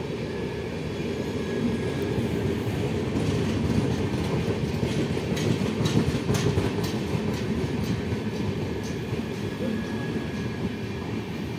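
Indian Railways sleeper coaches running past a station platform: a steady heavy rumble, with wheels clacking sharply over rail joints, most densely in the middle.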